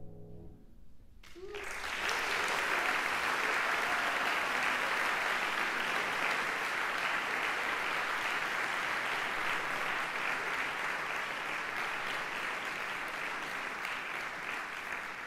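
The last chord of a Steinway grand piano dies away, and about a second and a half in the audience breaks into applause. The clapping swells quickly and goes on steadily, easing slightly near the end.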